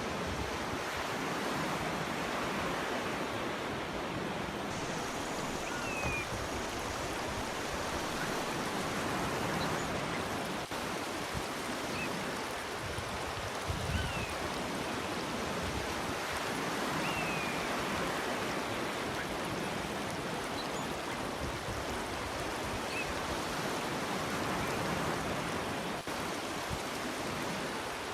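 Surf washing on a beach: a steady rush of waves that swells and eases every several seconds, with a few faint short bird chirps.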